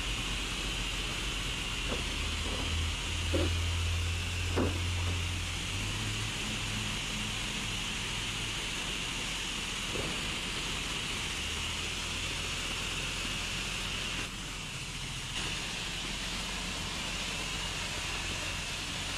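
A self-service car wash's high-pressure rinse wand spraying water onto a truck's body: a steady hiss of spray with a low hum underneath. The spray eases briefly about fourteen seconds in.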